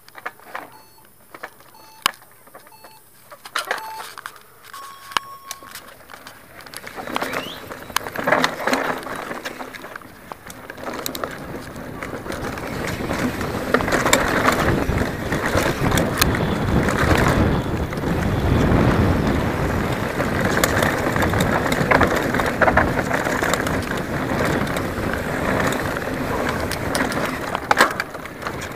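Start timer beeping a countdown: short beeps about a second apart, then one longer beep about five seconds in. Then a Specialized Enduro full-suspension mountain bike sets off and gathers speed down a dirt trail, its tyres, chain and suspension rattling under heavy wind noise on the helmet camera's microphone.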